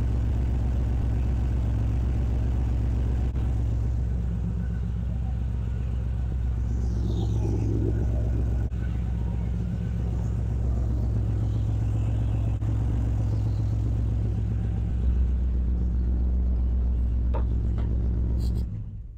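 LS V8 engine idling steadily with one whole bank of cylinders not firing, a misfire the owner traces to a loose ground wire on the cylinder head. The running sound cuts off abruptly just before the end.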